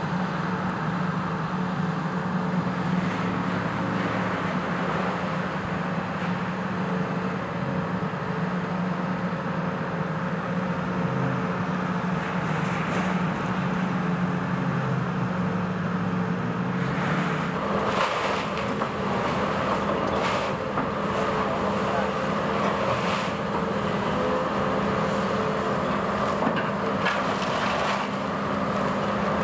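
Heavy diesel engine of a large tracked excavator running steadily. From about halfway through, irregular crashes and clatter join it as the machine pulls down the brick walls and debris falls.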